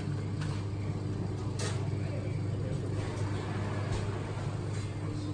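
Sheet of phyllo dough being flung and stretched in the air, giving a few soft slaps over a steady low machine hum, with background voices.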